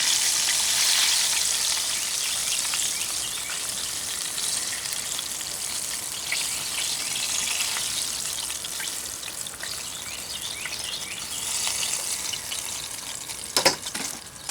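Chicken pieces deep-frying in hot oil: a steady sizzling hiss with fine crackles, gradually getting quieter. A single sharp knock about a second before the end.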